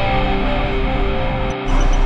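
Background music of long held notes that change pitch every so often, with a short break about one and a half seconds in.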